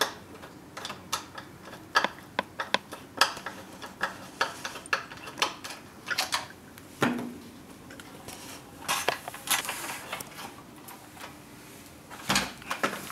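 Irregular small clicks and clinks of a hand tool working a bolt loose at the top of an oil-filled heater's plastic control housing. Near the end comes a dull thump as the heater is laid down on its side.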